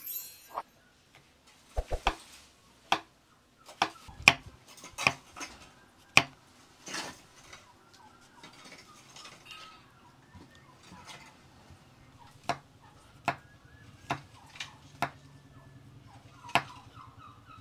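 Kitchen knife slicing white button mushrooms on a wooden cutting board, the blade knocking on the board in sharp, irregular taps with a few seconds' lull in the middle.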